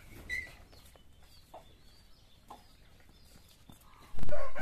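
Farmyard chickens clucking faintly, with a few short chirps. Near the end a sudden loud low thump.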